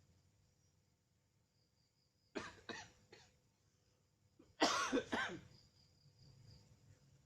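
A person coughing: three short coughs about two seconds in, then two louder, harsher coughs a second and a half later.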